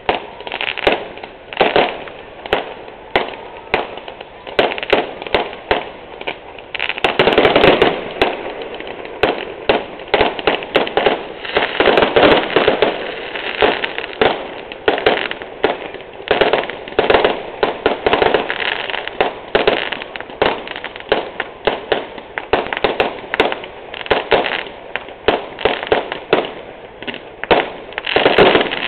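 Fireworks display: a steady run of bangs and crackling bursts from aerial shells, with denser barrages about seven and twelve seconds in and again near the end.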